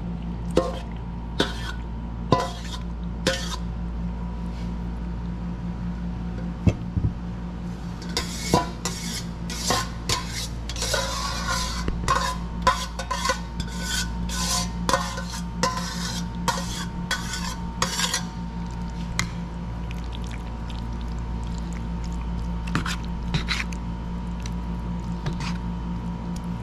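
A spoon stirring and scraping food in a dish, knocking against its sides: a few scattered knocks, then a busy run of quick scraping strokes for about ten seconds from about eight seconds in, then a few more knocks near the end. A steady low hum runs underneath.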